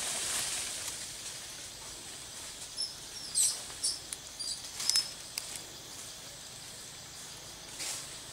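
Outdoor natural ambience with a steady high hiss, broken by a few brief, high-pitched chirps and light clicks around the middle.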